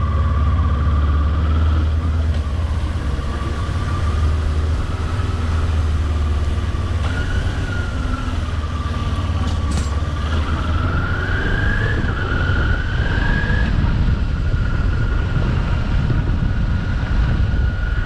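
Kawasaki Ninja 400's parallel-twin engine running under way at low speed, a steady low rumble whose pitch climbs and drops a few times in the middle with the throttle.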